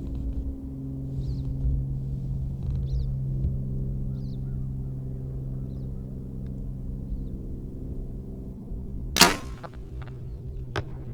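A bow shot: a single sharp, loud crack of the string releasing about nine seconds in, followed about a second and a half later by a fainter smack. Under it runs a steady low hum, with faint bird chirps.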